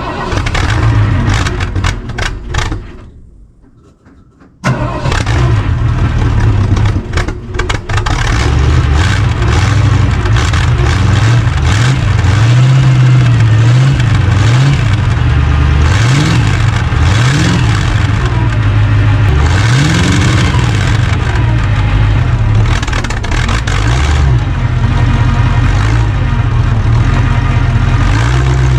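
Engine of a 1982 Ford F-100 pickup being started after sitting unstarted for a couple of weeks. A first try of a few seconds dies away, then about five seconds in it catches and keeps running, with the revs pushed up and let back down several times in the middle.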